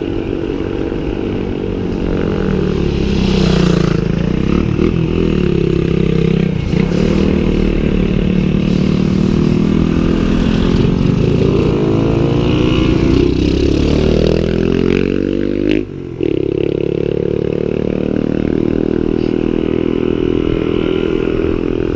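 Motor vehicles passing close by on a road, heard from a moving bicycle, their engine sound rising and falling in pitch as they go by. The sound drops out briefly about sixteen seconds in.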